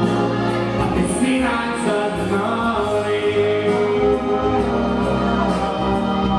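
Live music from a small band: a sung melody over keyboard accompaniment.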